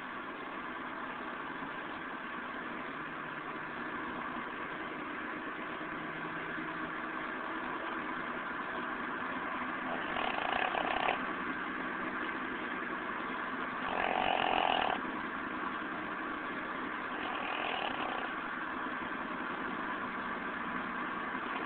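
Steady car engine and road hum inside the cabin, with a sleeping pet snoring three times, each snore about a second long and roughly three and a half seconds apart.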